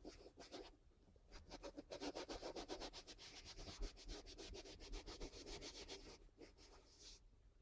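Fingers scratching and rubbing over the carpet covering of a subwoofer box, faint. A few separate strokes at first, then a quick run of about eight strokes a second for four seconds, and a couple more strokes near the end.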